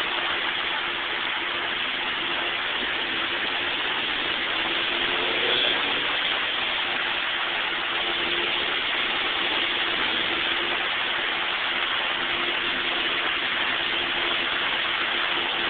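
Supercharged Chevrolet Cobalt SS four-cylinder engine, fitted with an Eaton TVS 1320 supercharger, idling steadily on a chassis dyno, with a steady hiss of noise over it and no revving.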